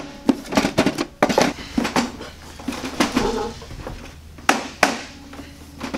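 Hands working at a Casio electronic cash register: an irregular string of clicks and knocks from its keys and plastic case, the loudest two about four and a half seconds in.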